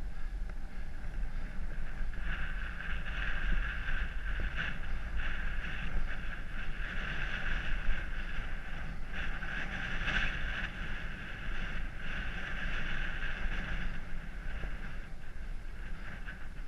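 Wind buffeting the microphone of a camera riding on a moving bicycle: a gusty low rumble. Over most of it runs a steady higher-pitched whir, which fades near the end.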